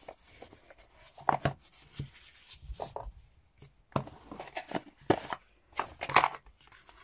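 Unboxing handling sounds: a cardboard box being opened and rubbed, with scattered light knocks as the box and a small flashlight are set down on a wooden tabletop.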